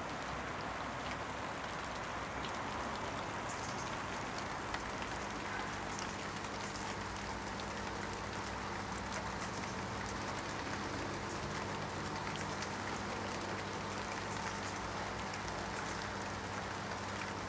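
Steady rain falling: a constant even hiss with scattered faint drop ticks.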